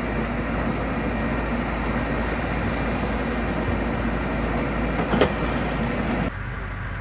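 Hidromek backhoe loader's diesel engine running steadily while its rear bucket digs out a streambed. The level drops somewhat near the end.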